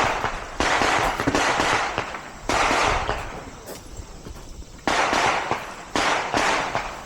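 Four pistol shots from elsewhere on the range, spaced about one to two seconds apart, each trailing off in a long echo.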